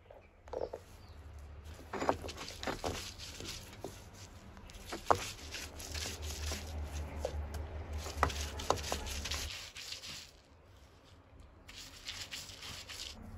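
A cylindrical stone roller rolled and pushed back and forth over a flat grinding stone, crushing scraped coconut and green chillies: rough stone-on-stone scraping in repeated strokes with occasional sharp clicks, and a deep rumble for a few seconds in the middle.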